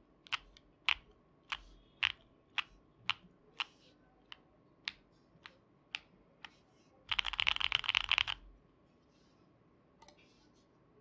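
Mode Envoy mechanical keyboard with Gateron Baby Kangaroo switches, GMK keycaps and an aluminium plate, keys pressed one at a time about twice a second, then a quick burst of fast typing about seven seconds in. The keystrokes have a clacky sound.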